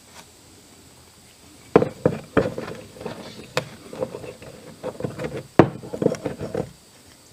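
Irregular clicking and knocking of metal tools and parts being handled at a workbench, starting about two seconds in and stopping shortly before the end, with two sharper knocks among them.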